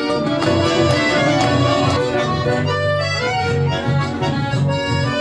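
Live folk music: an accordion playing held, sustained chords over a strummed acoustic guitar with a rhythmic bass line, and listeners clapping along.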